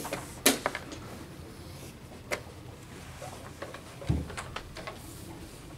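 Wooden chess pieces knocking on a wooden board and a chess clock's buttons clicking during blitz play: a few sharp clicks, the loudest about half a second in, then a duller thump and a few light clicks about four seconds in.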